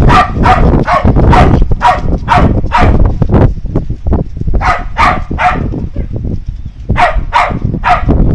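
A dog barking repeatedly, about two barks a second, in three bouts: a run of about seven, then two groups of three. A steady low rumble runs underneath.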